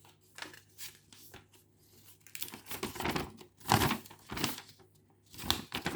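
Packaging from a model locomotive box crinkling and rustling as it is pulled out and handled, in several irregular short bursts.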